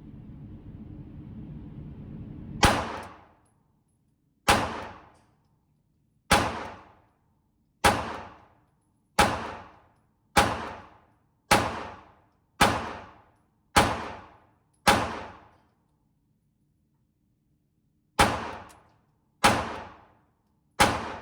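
Glock 26 9mm subcompact pistol fired thirteen times in an indoor range, each shot sharp and followed by a brief echoing decay. The shots start about two seconds apart and speed up to about one a second for ten rounds, then after a pause of about three seconds three more follow. A steady low hum runs before the first shot.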